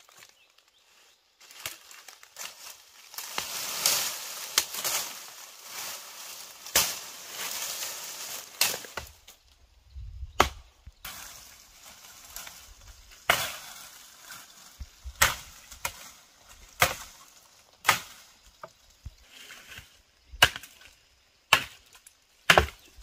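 Machete chopping into a dead tree branch: about seven sharp blows of the blade biting the wood, one every second or two, in the second half. Before them, dry brush and twigs rustle and crackle.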